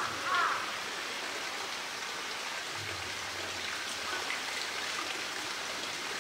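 Steady hiss of running water, an even rushing sound like a stream or waterfall, with no strokes or breaks.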